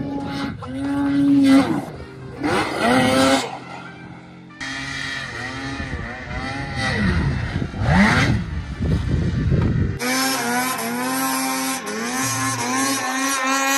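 Snowmobile engines revving hard as the sleds run past and launch off a snowbank, their pitch rising and falling in two passes. About ten seconds in, this gives way abruptly to background music.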